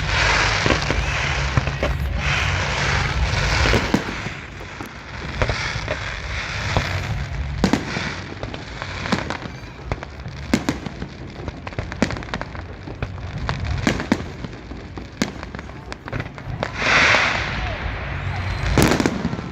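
Fireworks display: shells bursting in a run of sharp bangs, with crackling bursts near the start and again near the end, and a loud bang just before it ends.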